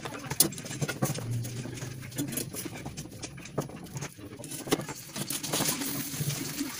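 Black steel mesh document tray being handled during assembly: light metal clicks, taps and scraping as the mesh trays are slid and seated onto the tubular frame, with a longer scrape about five and a half seconds in.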